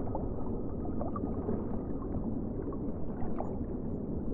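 Steady churning, water-like noise, with a few faint short chirps over it.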